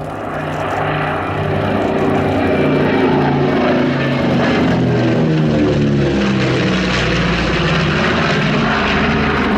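Piston-engine propeller aircraft flying past, its drone growing louder and then dropping in pitch as it passes, with an even pulsing beat in the engine note.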